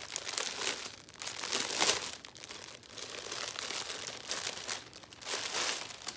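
Clear plastic bag crinkling as it is handled and opened and a folded fabric cover-up is pulled out of it. The rustles come in irregular bursts, the loudest about two seconds in.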